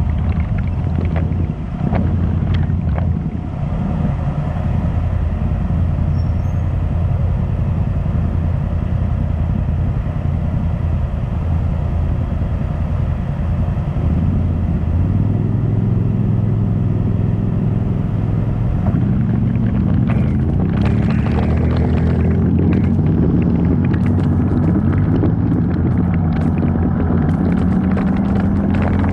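Off-road vehicle's engine running steadily while driving a trail, its pitch rising and falling with the throttle in the second half. Frequent knocks and rattles come in during that part too.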